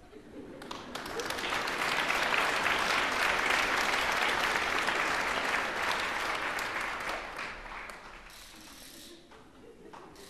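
Audience applauding after an operatic performance with orchestra. The clapping swells in within the first second, holds at full strength through the middle, and dies away about eight seconds in.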